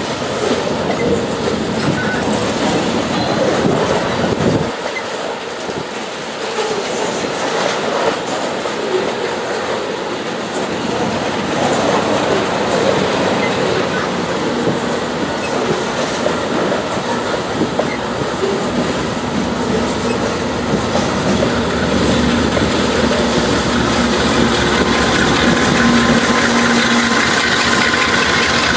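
Departing freight train: a diesel locomotive's engine running under load and its wheels rolling on the rails as it draws nearer and passes beneath, growing steadily louder toward the end.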